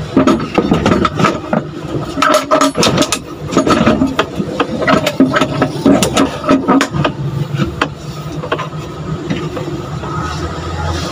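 Clicks, knocks and rattles of parts being handled inside a small van's cab for about seven seconds, some with a short metallic ring, then a steady low hum.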